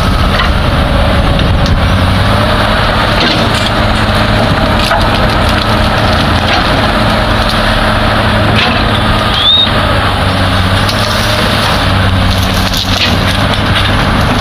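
Komatsu PC200 excavator's diesel engine running steadily under hydraulic load while it works through bushes, with scattered cracks and knocks of branches and rock. A brief high squeak sounds about nine seconds in.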